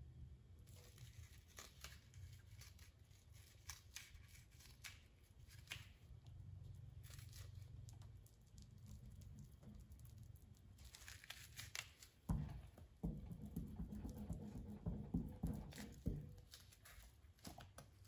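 Soft tearing and crinkling of fiberglass mat being pulled apart and handled by hand, with louder rustling and knocks from about two-thirds of the way through.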